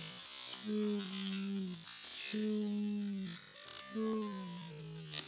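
Synthesizer intro music: three long held notes, each about a second, the last one sliding down in pitch, over a steady hiss.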